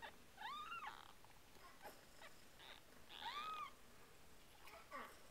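Two-week-old RagaMuffin kittens mewing faintly: two thin high mews about half a second in and about three seconds in, each rising then falling in pitch, and a shorter falling mew near the end.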